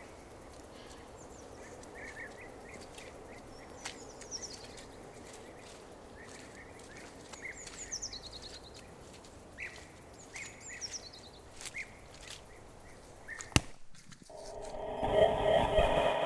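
Woodland ambience: small birds chirping in short descending calls, with scattered light crackles of footsteps on the forest floor. About 14 seconds in there is a sharp click, then a loud, steady tone of several pitches at once swells in near the end, an added sound effect.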